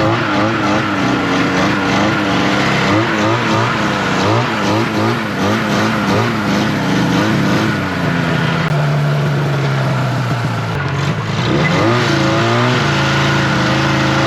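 Vintage snowmobile's two-stroke engine revving up and down unevenly, settling to a steadier pitch about halfway through, then revving again near the end.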